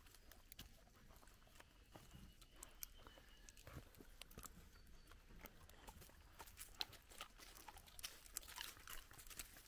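Faint crunching and cracking of a dog chewing acorns among dry leaves and acorn shells, the crunches coming more often in the last few seconds.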